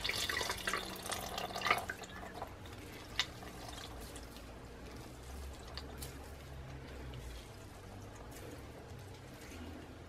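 Buttermilk trickling and dripping into a colander as a cloth bag of freshly churned butter is squeezed by hand, loudest in the first two seconds. One sharp tap about three seconds in.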